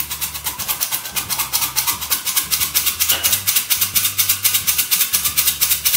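Hand-squeezed metal flour sifter shaking cocoa powder through its mesh: a rapid, even rasping rattle of the agitator wires against the screen, about eight strokes a second.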